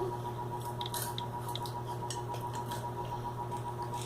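Irregular, sharp little clicks of fingers tapping the passcode into an iPhone 5C touchscreen to unlock it.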